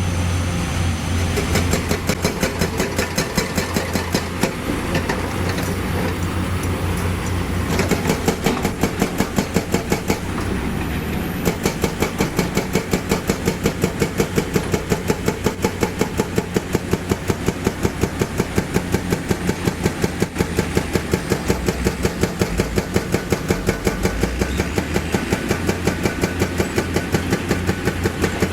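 Diesel engine of heavy earthmoving machinery running steadily, with a regular beat of about three to four pulses a second that grows sharper about eight seconds in.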